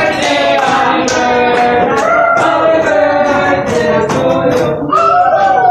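Background music: a song with a singer's voice over instrumental backing.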